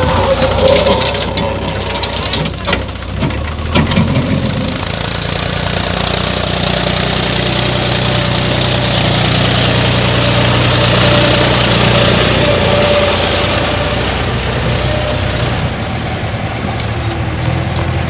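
Diesel engines of a backhoe loader and a Mahindra 275 tractor running, with several sharp knocks and clatters in the first four seconds as the loader's bucket tips sand into the trolley. After that, the tractor's diesel engine runs steadily under load.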